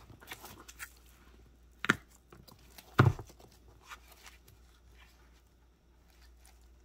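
A small leather handbag being handled and turned over, with soft rustles and two sharp knocks about a second apart, the second the louder.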